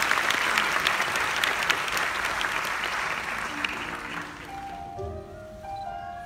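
Audience applause fading away. About four seconds in, a few soft held musical notes begin at stepping pitches.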